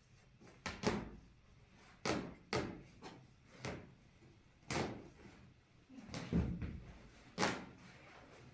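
A series of irregular knocks and bangs, about eight over several seconds, each dying away quickly.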